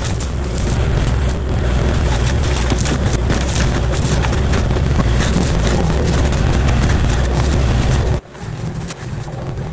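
Forestry mulcher head on a Kubota KX040-4 mini excavator grinding through briars and brush. The drum's teeth chip and splinter wood with a constant crackle over the excavator's steady diesel drone. About 8 seconds in, the sound drops suddenly and carries on much quieter.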